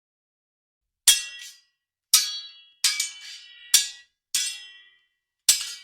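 Sword blades clashing: six sharp metallic strikes about a second apart, starting about a second in, each ringing briefly.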